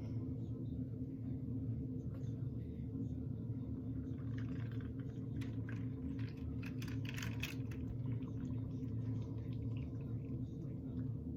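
Faint splashing and light clicks of a small plastic toy train being handled in hot water, over a steady low hum, the clicks clustered in the middle.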